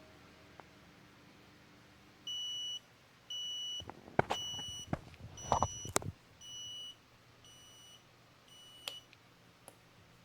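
Arduino-built alarm clock's buzzer beeping one high tone, seven half-second beeps about a second apart that grow fainter toward the end. Sharp knocks and clatter land among the beeps about halfway through.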